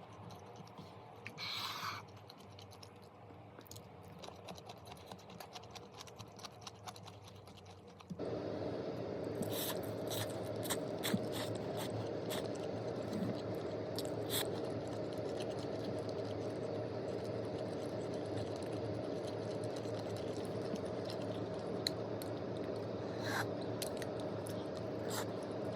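Light clicks and scrapes of handling, then about eight seconds in a steady machine hum switches on suddenly and keeps running, with occasional sharp clicks over it.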